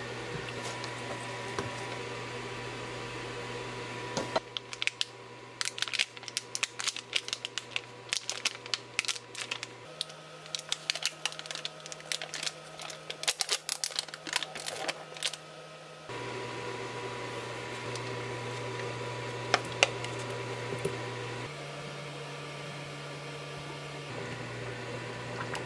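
Plastic packet of solid curry roux being peeled open and handled, crinkling with many sharp crackles from about four seconds in to about sixteen seconds in, over a steady hum.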